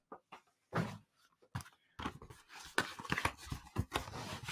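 A stiff cardboard mailer envelope being handled and pulled open: crackling, rustling and tearing of card and paper, thickening in the second half, with a soft thud about a second in as a package is set down.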